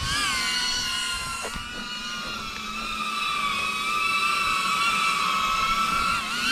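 FPV quadcopter's brushless motors and propellers whining steadily, the pitch wavering with throttle, then dipping briefly and climbing again near the end.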